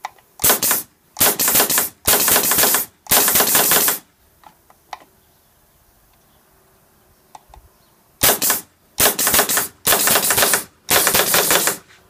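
Pneumatic door-handle prop firing: a solenoid air valve and air cylinder rapidly chattering a door lever handle. Four rattling bursts, a pause of about four seconds, then four more.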